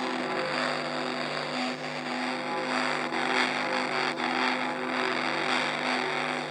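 Church bells ringing, a stroke every second or so with their tones ringing on, over a steady rushing background noise.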